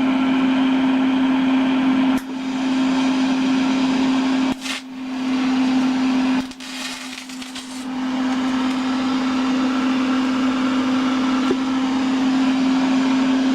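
Electric power tool motor running steadily with a constant hum and a loud grinding hiss; the hiss drops away briefly three times while the motor keeps spinning.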